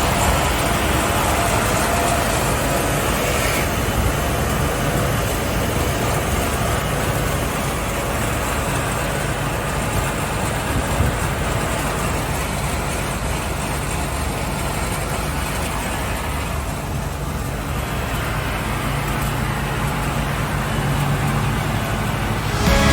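Rojek BS 1100 wide-belt sander running steadily, its two sanding units working wood fed through the machine. The upper hiss thins out for a few seconds about two-thirds of the way through.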